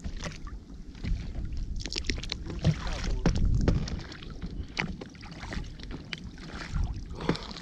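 Wind rumbling on the microphone in a small open boat at sea, with scattered clicks and knocks from handling fishing rods and reels.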